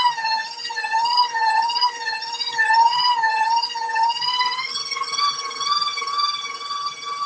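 KitchenAid stand mixer's motor whining as its flat beater churns a stiff butter and powdered-sugar frosting. The pitch wavers up and down about twice a second as the beater works against the thick mixture, and steps slightly higher about two-thirds of the way through.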